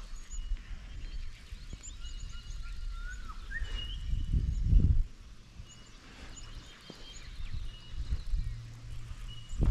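Several birds calling: short chirps and repeated whistled notes, one rising whistle a few seconds in. A low rumble on the microphone swells about four to five seconds in.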